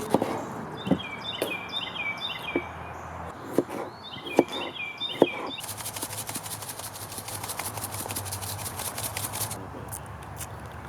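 Knife chopping potatoes and onion on a board: a string of separate sharp knocks, with a bird singing a repeated chirping phrase in the background. Past the middle come a few seconds of fast, even ticking.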